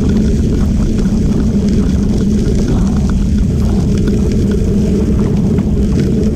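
Steady low rumble of a moving ride along a crushed-gravel trail: wind on the microphone and tyres rolling over the stone, with faint small crunches scattered through it.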